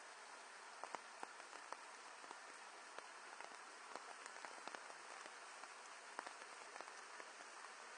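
Faint steady hiss with many light clicks and taps scattered irregularly through it, the sharpest about a second in and just after six seconds.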